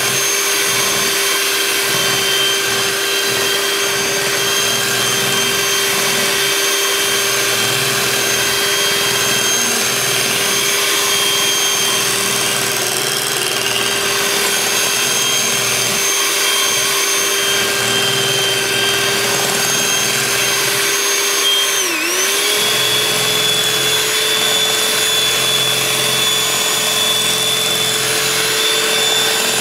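Electric hand mixer running steadily with a motor whine, its beaters churning a liquid batter of sugar, canola oil and eggs being creamed toward a butter-like consistency. About two-thirds of the way through, the pitch dips briefly and then settles a little higher.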